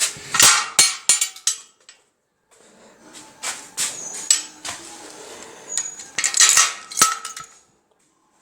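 Clusters of sharp knocks and metallic clinks, the loudest in the first second and around six to seven seconds in, with two brief total silences between them.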